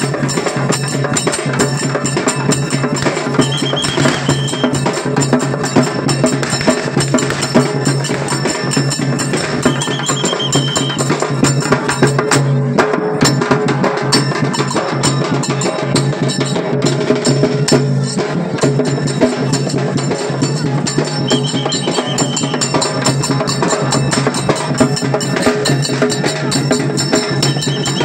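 Lezim dance accompaniment: a large drum beating a fast, steady rhythm under the jingling of lezim, wooden sticks hung with small metal discs shaken by the dancers. A short, high, steady tone cuts in briefly about four times.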